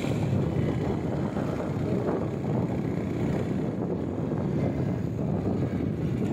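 Motorcycle engine running steadily on the move, mixed with wind rushing over the microphone.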